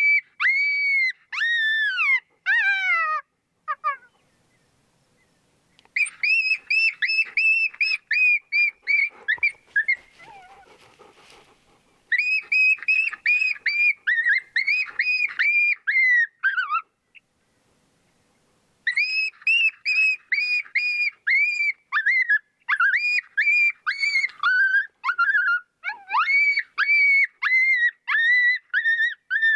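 Canine yelps: long runs of short, high, arching yips, several a second, broken by two pauses of a second or two. The sound cuts off abruptly near the end.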